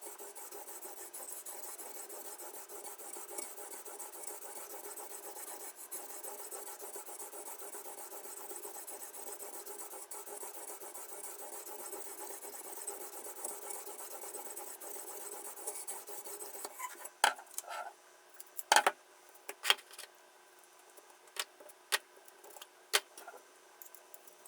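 A kitchen knife's blade being stroked over and over along the stone of a guided knife-sharpening jig, a steady scraping rasp. About two-thirds of the way through the scraping stops, and a handful of sharp clicks and knocks follow.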